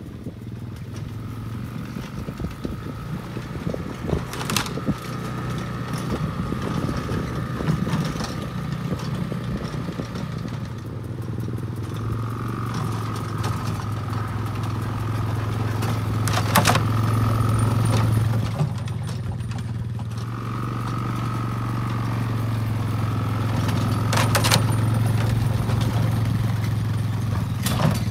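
ATV engine running steadily while it tows a wheeled roping dummy, with a higher whine that comes and goes. A few sharp clacks stand out, about five, seventeen, twenty-four and twenty-eight seconds in.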